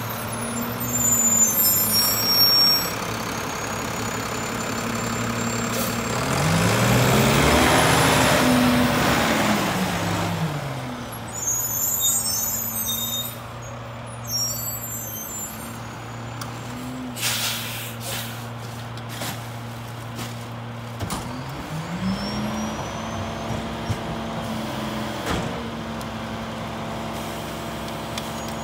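Mack LEU garbage truck's diesel engine running, with hissing air-brake releases in the first couple of seconds and again about eleven seconds in. About six seconds in the engine revs up and falls back over a few seconds, then idles, and about three-quarters of the way through it revs up again and holds at the higher speed.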